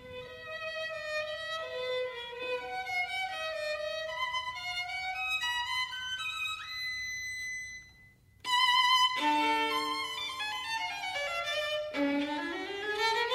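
Background music: a quick violin melody of short notes, holding one long high note before a brief break about eight seconds in, then coming back louder.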